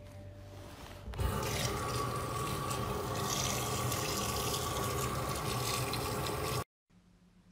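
Tap water running steadily into a metal basin of live superworms as they are washed by hand. The water starts about a second in and cuts off abruptly near the end.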